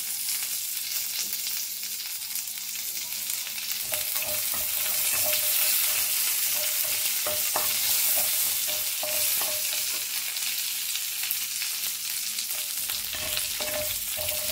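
Curry leaves sizzling in hot oil in a non-stick frying pan. From about four seconds in, a wooden spatula stirs them, with short scrapes and taps against the pan.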